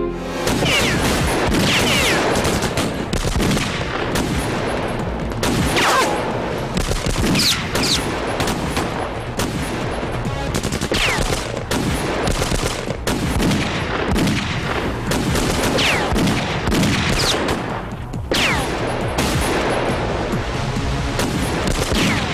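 Sustained gunfire in a shootout: rapid, dense volleys of shots, with several falling whines among them.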